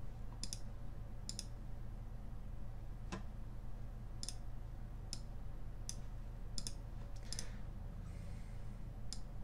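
Computer mouse clicking: about nine separate single clicks, roughly one a second, over a low steady hum.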